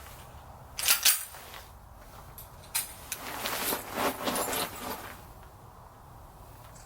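Metal clacks and rattling from handling a pistol: two sharp clacks about a second in, another a little later, then a couple of seconds of clattering.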